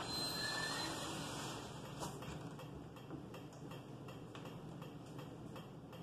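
Ceiling fan running: a steady rush of air with faint regular ticking, and a couple of light knocks.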